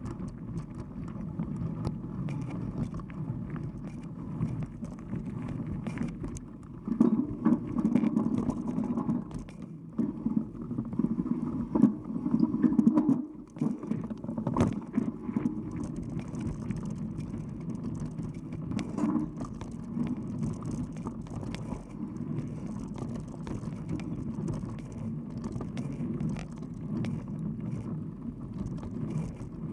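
Mountain bike rolling along a dirt trail: steady rumble of knobby tyres on dirt with scattered clicks and knocks from the bike, louder over rough stretches about seven and twelve seconds in.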